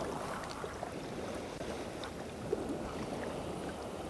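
Calm sea lapping with a steady rush of wind on the microphone, and a few faint ticks.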